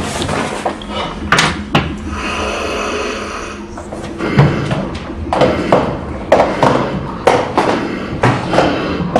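A rapid, irregular series of knocks and bangs against a door in a small room, about a dozen in all, with a rustling lull between about two and three and a half seconds in.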